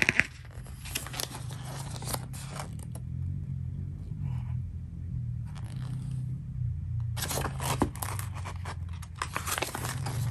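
Paper pages of a user-manual booklet rustling and crackling as they are handled and turned, in two busy spells with a quieter stretch in the middle. A steady low hum runs underneath.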